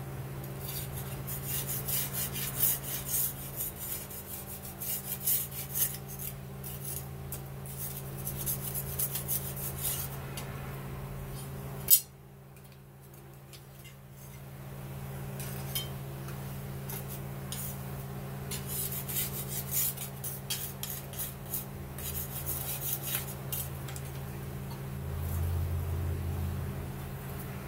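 Metal scraping and scratching as a freshly quenched damascus knife blade, held in steel tongs on a rag, is worked over and black flakes come off it. The scratching is irregular and comes in two long stretches, with one sharp clank about twelve seconds in, over a steady low hum.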